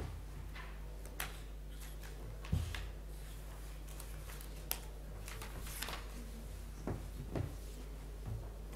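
Steady electrical mains hum with scattered light clicks and knocks of objects being handled, the loudest a dull thump about two and a half seconds in.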